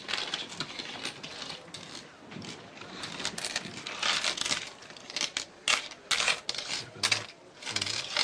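Coins clinking and sliding on a wooden counter as they are counted out by hand: a run of short metallic clicks, coming more thickly near the end.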